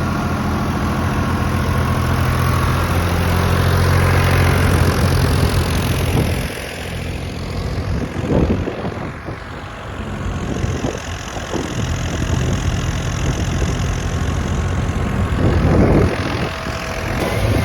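Wheat threshing machine running with a steady engine hum. About six seconds in, the hum drops and turns uneven, with repeated rough surges.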